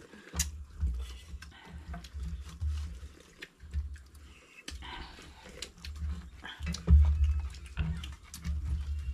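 Metal spoons and plates clinking and tapping at a shared meal, in many short, irregular clicks. Under them runs an uneven low rumbling, loudest about seven seconds in.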